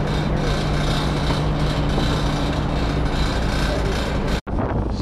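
Passenger boat's engine running with a steady low hum under wind and water noise on the open deck. The sound drops out for an instant near the end and comes back with more wind on the microphone.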